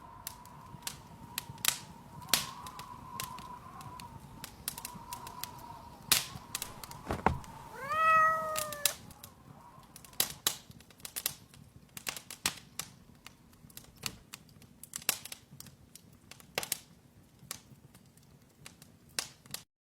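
A cat meows once, about eight seconds in, over a run of irregular light clicks and taps. A faint steady high hum runs under the first several seconds.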